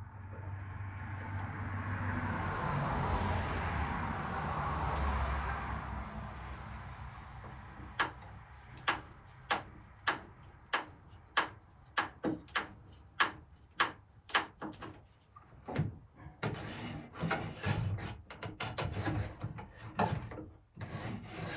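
A screwdriver working rusty screws in old metal hinges. A scraping, grinding noise swells and fades over several seconds, then comes a run of sharp metal clicks and knocks, about one to two a second, ending in a cluster of softer rattling knocks.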